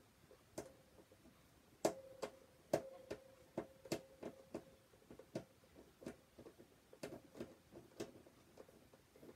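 A small screwdriver turning tight screws in a plastic toy casing: faint, irregular clicks and ticks, some twenty in all, with a faint steady hum underneath.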